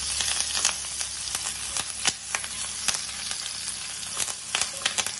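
Curry leaves sizzling and crackling in hot coconut oil in a frying pan, with frequent sharp pops, while a wooden spatula stirs them.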